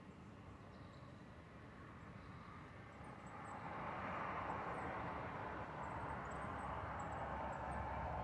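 Distant engine noise, a steady wash of sound that swells about three to four seconds in and then holds.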